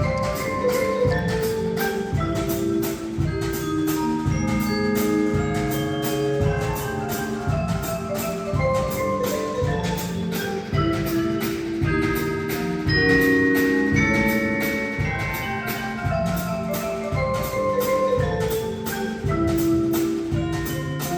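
School concert band playing, with mallet percussion carrying the tune over a steady beat of about two strokes a second.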